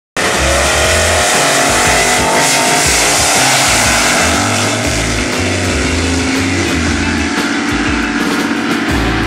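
Two drag-racing cars launching together and accelerating hard away down the strip, their engine noise loudest at first and thinning as they pull away, under background music with a stepping bass line.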